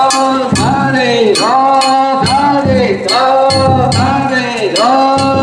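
Danjiri float music: a steady, loud rhythm of drum beats and clinking metal gong strikes, with a falling-pitched phrase repeating about once a second.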